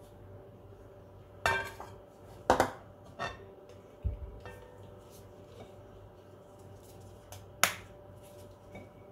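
Glass bowls clinking: a glass mixing bowl set down on the table and an egg lifted out of another glass bowl. There are several sharp clinks with a short ring, the loudest about one and a half, two and a half and seven and a half seconds in, and a dull knock about four seconds in.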